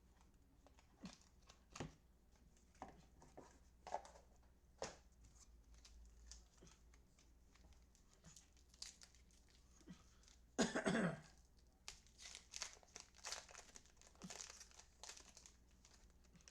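Trading card packs and cards being handled: wrappers crinkling and tearing, with scattered light clicks and rustles. One louder, longer noisy burst comes about ten and a half seconds in.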